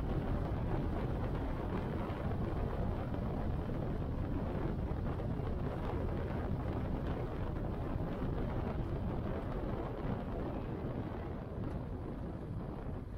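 Motorcycle cruising at highway speed, with wind rushing over the microphone on top of the engine and tyre noise. It gets a little quieter near the end.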